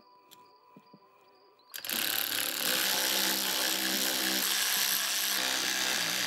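Cordless electric ratchet running steadily for about four and a half seconds, driving a screw into a heater control valve and auxiliary pump assembly. It starts about two seconds in and cuts off suddenly.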